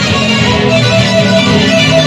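Loud electric guitar music played live, dense and sustained, with a run of short repeated notes from about half a second in.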